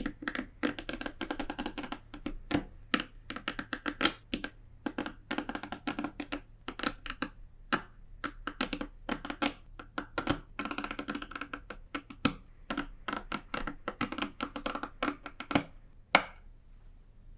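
Rapid, irregular tapping and clicking with a hollow, ringing tone, stopping after one louder click near the end.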